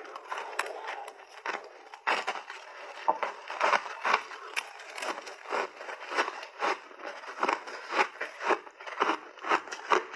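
Crisp crunching of frozen mixed berries and ice being chewed in big mouthfuls. The crunching is sparser for the first couple of seconds, then loud crunches come about twice a second.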